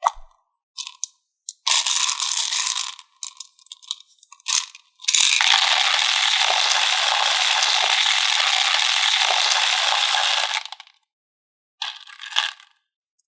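Small hard-shelled candies poured and rattling into a plastic container: a few short pours, then one long steady pour lasting about five seconds, then a brief rattle near the end.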